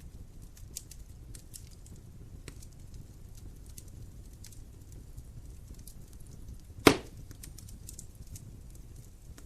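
Wood fire burning in a fireplace: a low steady rumble with scattered faint crackles, and one loud sharp pop about seven seconds in.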